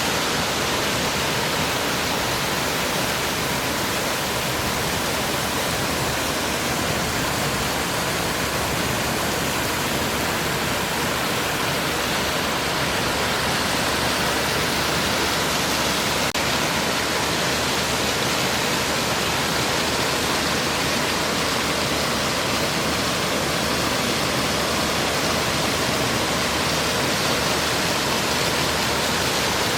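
Water of a clear stream falling and flowing over stones: a steady rushing, gurgling sound.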